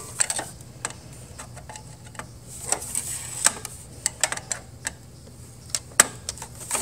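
A long screwdriver clicking and tapping irregularly against metal and plastic inside a laser printer as its tip is seated on a tight black swing-plate screw.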